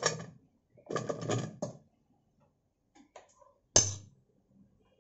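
Pumpkin chunks pushed off a plate with a steel spoon and dropping into a stainless-steel steamer bowl: a burst of clattering knocks at the start and another lasting about a second soon after, a few faint ticks, then one sharp clank near the end, the loudest.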